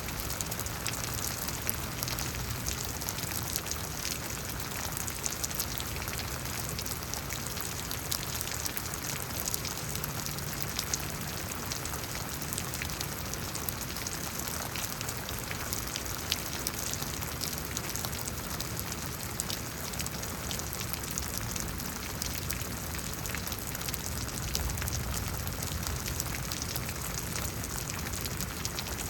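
Steady rain falling during a thunderstorm, a constant hiss with many individual drops ticking on nearby surfaces.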